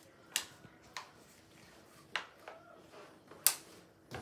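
Clear plastic yoghurt pot clicking and crackling as a dog licks it out between its paws: four sharp clicks, roughly a second apart.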